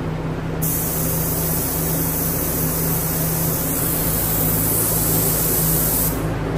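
Compressed air hissing out of a Sagola 4600 spray gun with the trigger held, the air pressure being set at about 28 PSI on the gauge at the gun's handle. The hiss starts abruptly about half a second in and cuts off just before the end, over a steady low hum.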